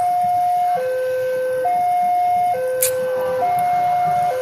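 Railway level-crossing warning alarm sounding a two-tone electronic chime, a higher and a lower note taking turns about once a second: the signal that a train is approaching the crossing. A brief sharp click sounds once about three seconds in.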